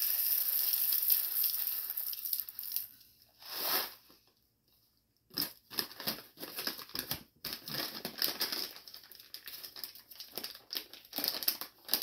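Whole coffee beans poured from a bag into a burr grinder's plastic hopper, a steady rush for the first few seconds. Then the coffee bag is crinkled and folded shut, many sharp crackles.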